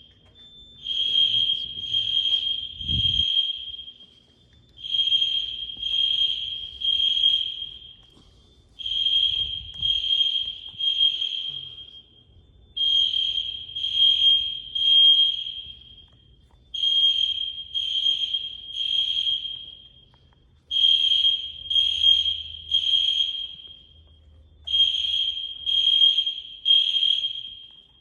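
Fire alarm sounders beeping a high, piercing tone in the temporal-three pattern: three beeps about a second apart, then a pause, the group repeating about every four seconds. This is the standard evacuation signal.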